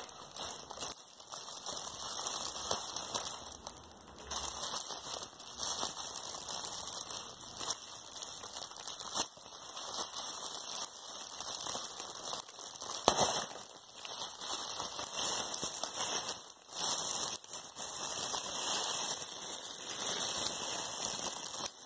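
Cellophane gift wrap crinkling and crackling irregularly as hands work at it to get it open, with a few louder crackles now and then.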